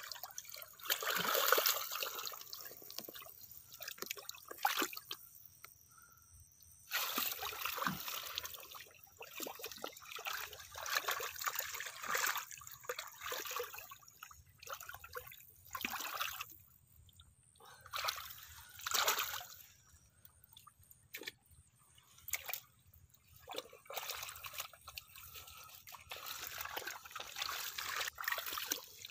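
Hands groping and stirring through shallow muddy water, making irregular sloshing, splashing and trickling with short pauses in between.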